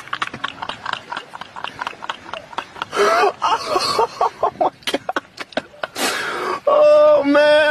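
A person laughing hard in rapid short breaths, breaking into long, held high-pitched laughter near the end.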